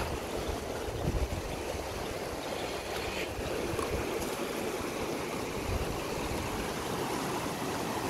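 Small mountain river rushing over boulders and rapids, a steady rush of water. A few low thumps about a second in.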